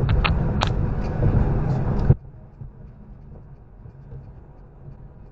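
Loud vehicle driving noise with a few sharp clicks. About two seconds in it cuts off abruptly to a much quieter, steady low road hum.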